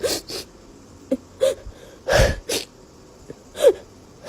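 A parrot making a series of short, sharp calls, about seven in four seconds, a few with a brief curving note.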